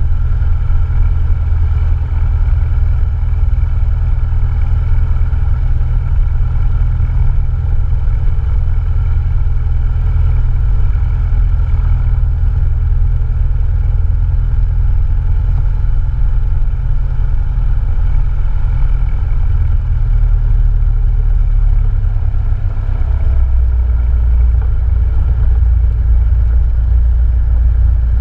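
Cessna 172N's four-cylinder Lycoming O-320 engine and propeller running steadily: a loud, deep, even drone with a ladder of higher tones over it. About two-thirds of the way through, the lowest part of the drone shifts slightly.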